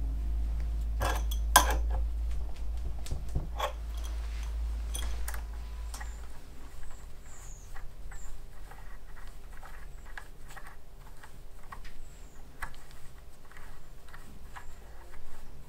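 Small metal clicks and taps of tools and parts being handled while a stepper-motor mount is screwed together with threaded rod and spacers, denser in the first few seconds and sparser later, over a low rumble that stops about six seconds in.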